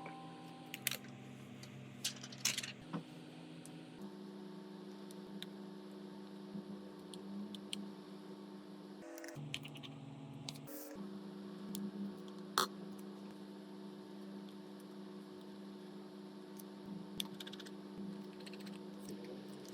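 Sparse light clicks and taps over a steady low electrical hum, with one sharper click about two-thirds of the way in.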